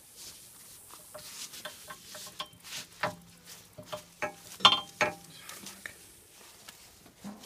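Metal hook and ratchet hardware of a ratchet tow strap clinking and rattling in short irregular clicks as it is handled, loudest about halfway through. A faint steady hum sounds through the middle.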